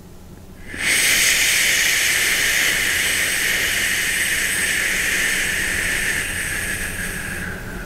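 A person exhaling the qigong liver healing sound, a long, loud 'shhh' hiss. It starts about a second in and tapers off near the end.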